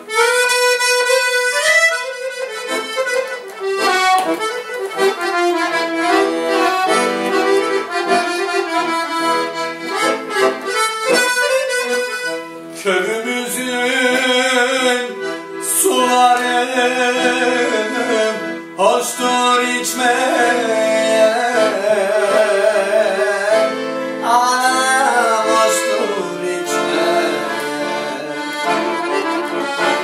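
Piano accordion playing an instrumental passage, a melody of quick notes over held chords.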